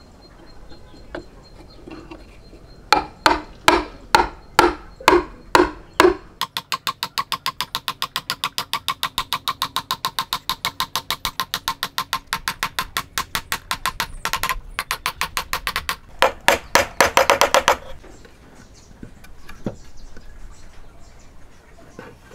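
Hand hammer striking a wooden joint piece. First comes a series of hard blows at about three a second, then a long run of quick, even, lighter taps at about seven a second, then a few more blows and a fast flurry before it stops.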